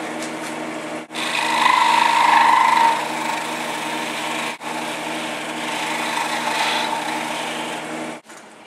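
Wood lathe running with a steady motor hum while an abrasive pad is held against the spinning wooden cylinder, giving a dry rubbing hiss that is loudest between about one and three seconds in. The sound breaks off for an instant about a second in and again around the middle.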